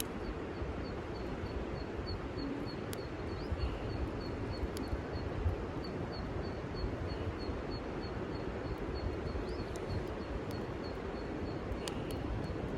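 Wind buffeting the microphone, with a high, even chirp repeating about three times a second and pausing briefly about halfway through. A few faint crackles come from the wood fire.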